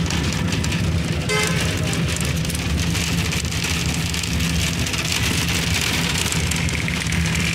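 Engine and road noise inside a moving bus: a steady low drone under a constant hiss, with a brief tone about a second in.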